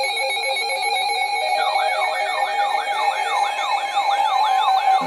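Electronic siren: steady tones, joined about a second and a half in by a fast yelp, its pitch sweeping up and down about three times a second.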